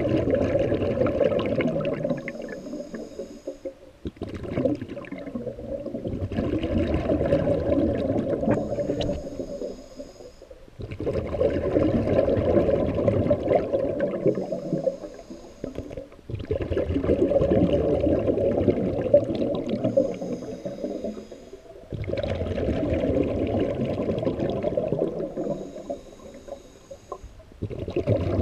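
Scuba diver breathing through a regulator underwater: a short, thin hiss on each inhale, then a long, louder gush of bubbles as the breath is exhaled, repeating about every five to six seconds.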